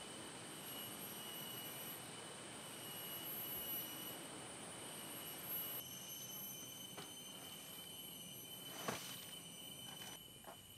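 Rainforest insects calling in a steady chorus of high, unbroken tones, over a low rush of noise that drops away suddenly about halfway through. A single sharp click comes near the end.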